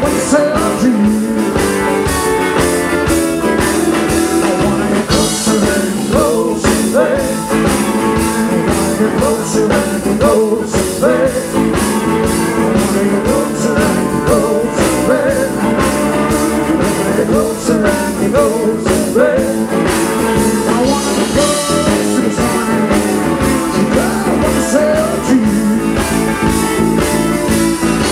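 Live rock and roll band playing on a loud stage PA, electric guitars over drums and keyboard, with no break in the music.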